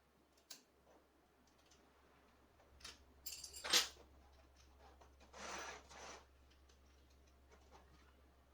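Faint handling noises over a low hum: a click, a short clatter about three and a half seconds in, then two brief scraping rubs.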